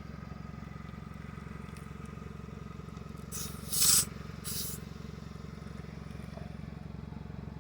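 Three short hisses of air escaping from a tyre valve as the compressor's screw-on hose chuck is threaded onto it, the middle one loudest. Under them runs a steady low hum.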